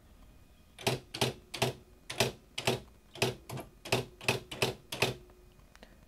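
Smith Corona electronic daisy wheel typewriter printing a line of text, about eleven sharp print-hammer strikes at a typing pace of roughly two a second. The strikes start about a second in and stop about a second before the end.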